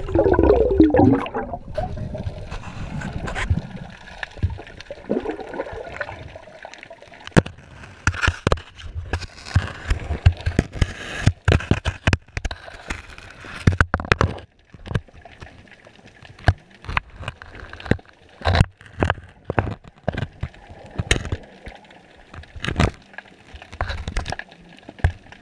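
Underwater sound through a dropped GoPro's waterproof housing. A gurgling rush of water in the first couple of seconds, then many irregular sharp clicks and knocks over a low watery hiss.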